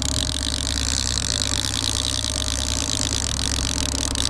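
Boat motor running steadily at trolling speed, a constant low hum with a steady high hiss over it.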